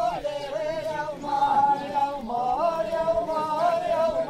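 Voices singing a govend line-dance song unaccompanied, in long, wavering held notes.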